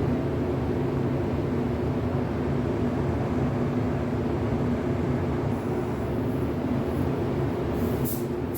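Fan running steadily with a low hum, drying fresh paint. A brief high hiss comes near the end.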